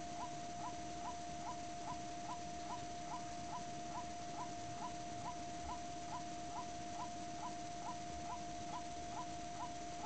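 White-breasted waterhen (kareo) calling: a short rising note repeated steadily, about two to three times a second, over a steady tone.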